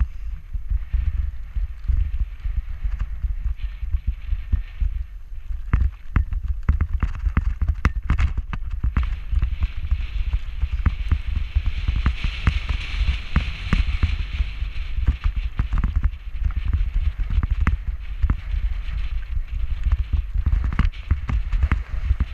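Mountain bike descending a rocky trail: constant clattering jolts of the tyres and frame over stones, over a low wind rumble on the action-camera microphone. A brighter hiss swells about halfway through and fades again.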